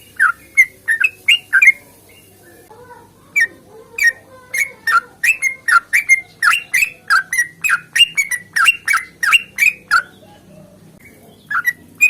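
Yellow-vented bulbul (trucukan) singing a long rapid series of short, sharp chattering notes, about three to four a second, broken by pauses about two seconds in and near the end.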